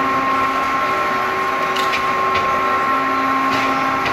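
Screw conveyor of a chicken-waste rendering plant running, moving feathers and chicken feet through its hopper: a steady machine hum with a constant high tone, and a few light clicks in the middle.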